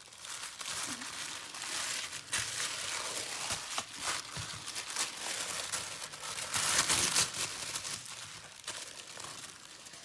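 Tissue paper rustling and crinkling as hands unfold and pull it apart, with a louder stretch of crinkling about seven seconds in.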